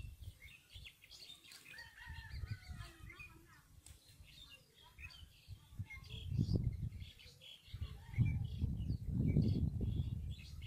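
Birds chirping and calling around the water, many short high calls throughout. A low rumbling noise swells about six seconds in and again over the last few seconds, louder than the birds.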